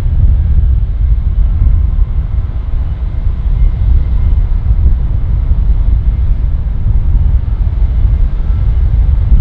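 Twin jet engines of a Boeing 767 freighter at takeoff power during its takeoff roll: a loud, steady low rumble.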